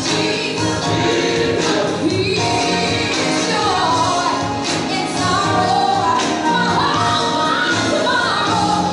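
Gospel music: a choir singing over a steady accompaniment.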